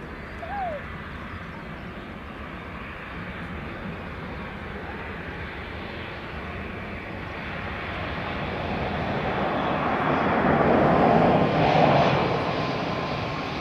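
Aircraft engines growing louder as a plane passes close by, peaking about eleven to twelve seconds in and then beginning to fade.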